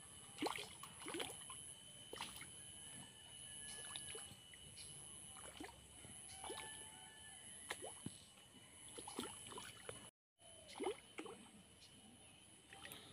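Fish taking food or air at the surface of a pond: scattered small, faint plops and gulps, irregular, a few close together at times.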